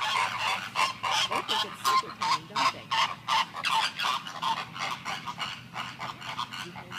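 A flock of flamingos honking: a steady stream of short, goose-like calls, several a second, easing off a little near the end.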